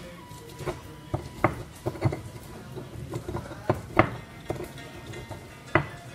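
Irregular heavy chopping strikes on a wooden cutting board, breaking up red chilies by hand instead of grinding them in a mortar: about ten knocks with uneven gaps, the loudest about four seconds in.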